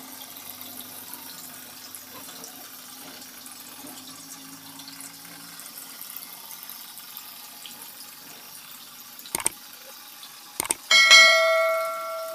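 Faint steady hum of a toy boat's small DC motor for the first half. Near the end come two clicks, then a loud bell chime from a subscribe-button animation that rings and fades.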